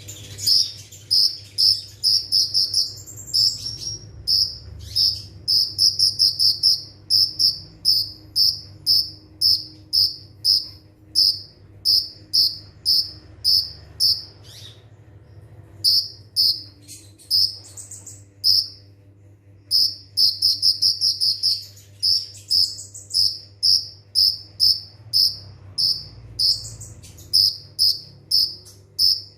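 Kolibri ninja (konin) sunbird singing its rapid 'nembak' song: a long run of short, high, sharp trilled chirps, about two a second, broken by brief pauses about halfway and again a little later.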